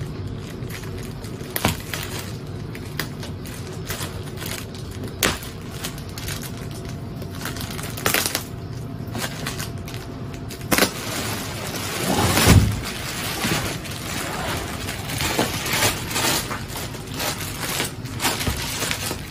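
Plastic packaging crinkling and crackling as scissors cut open a roll-packed mattress topper, with scattered sharp snips and crackles. About twelve seconds in there is a louder stretch of rustling with a low thump.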